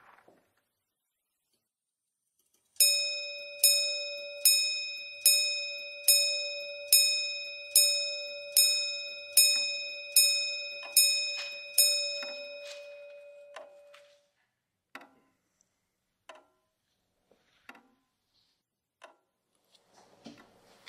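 A clock's bell striking the hour twelve times, one stroke a bit under every second, each stroke ringing on at the same pitch; the last stroke rings out, followed by a few faint scattered clicks.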